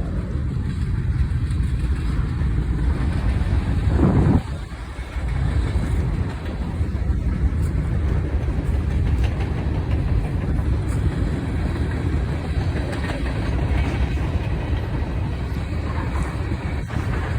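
A train rolling past at speed: a steady, heavy rumble of wheels on rail, with a brief louder surge about four seconds in.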